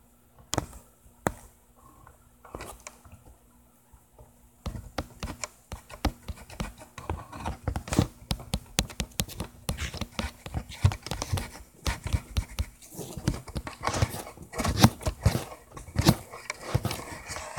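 Handling noise close to a microphone: a few sharp clicks, then from about five seconds in a dense, irregular run of scrapes, rubs and knocks.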